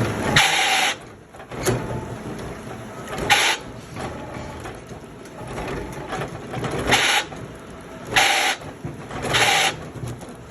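Wood-processing machine running, with five short hissing bursts at uneven intervals.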